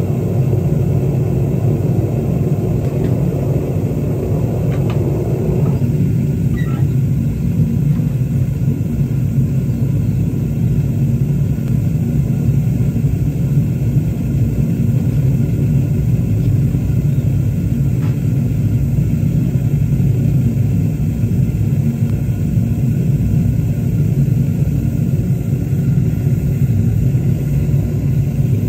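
Gas burner of a home-made foundry furnace running steadily with a low, even rumble while it heats the melt, with a few faint ticks of metal tools.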